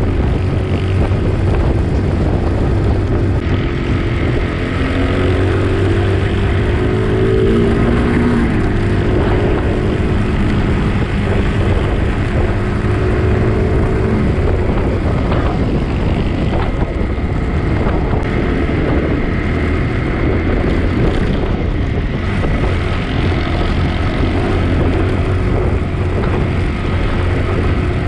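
Motorcycle engine running while riding a dirt track, its note rising and falling with the throttle through the first half, over a steady low rumble.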